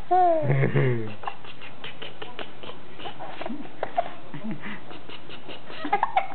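A two-month-old baby laughing: one falling giggle in the first second, then a few short, soft coos and breaths.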